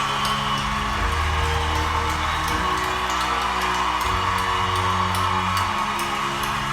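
Upbeat show music with a slow bass line that changes about every second and a half, over a studio audience cheering and applauding.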